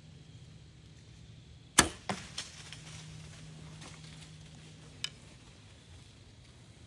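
A compound bow being shot: one sharp, loud snap about two seconds in, followed within half a second by two softer knocks. A single short click comes a few seconds later.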